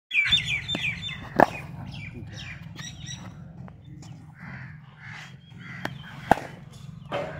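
Crows cawing and small birds chirping, with a few sharp knocks of a hard cricket ball. The loudest knock comes about one and a half seconds in, another about six seconds in.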